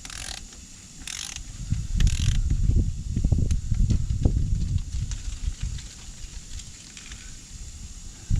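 Milwaukee M12 Fuel 3/8-inch cordless ratchet working a fastener: ratchet clicks with a low rumble, loudest from about two to five seconds in.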